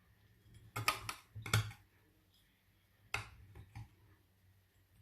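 A utensil clicking and knocking against a baking dish while a baked apple cobbler is cut, in two short groups of sharp knocks.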